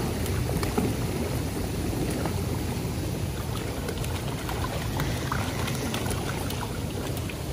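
Hot tub jets churning the water in a steady bubbling rush, with small splashes from feet kicking in it.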